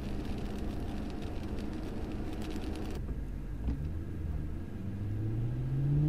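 Car cabin at highway speed on a wet road: steady rumble of tyres and engine, with many small ticks of rain on the windshield. About three seconds in it cuts abruptly to a quieter slow crawl, and near the end the engine's pitch rises as the car accelerates.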